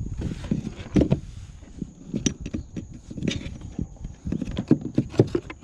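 Irregular knocks and bumps of handling inside a plastic fishing kayak, the loudest about a second in and again near the end.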